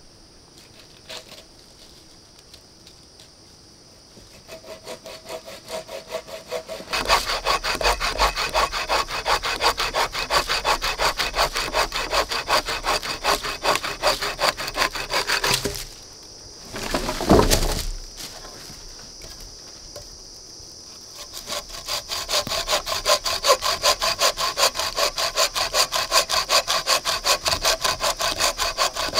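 Wooden-framed bucksaw cutting through a log in quick, even back-and-forth strokes, the blade rasping through the wood. It starts softly a few seconds in and grows loud, then stops for a few seconds, during which there is one short loud noise, then saws on.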